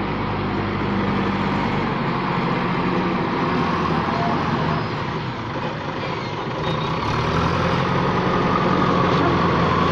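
JCB 3DX backhoe loader's diesel engine running steadily as the machine drives and manoeuvres with its front bucket raised. The engine eases off slightly in the middle and picks up again after about seven seconds.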